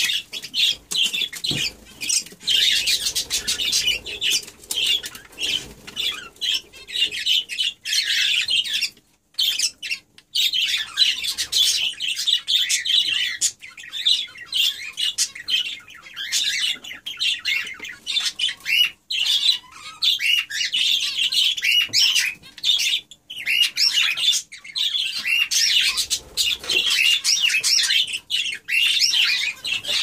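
Budgerigars warbling and chattering rapidly and almost without pause while mating, with wings fluttering. The chatter stops briefly twice.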